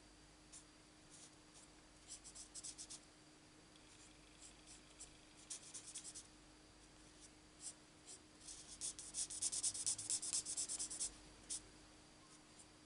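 Stampin' Blends alcohol marker nib scratching on cardstock in quick short colouring strokes. The strokes come in flurries, with the densest and loudest run about 9 to 11 seconds in.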